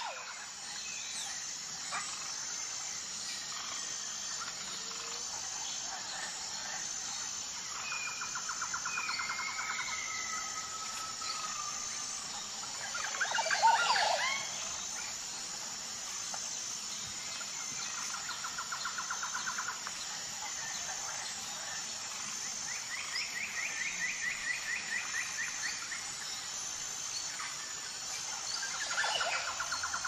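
Natural forest ambience: assorted bird calls, chirps and repeated rapid trills of a couple of seconds each over a steady, high, pulsing insect buzz. A loud flurry of calls comes about halfway through.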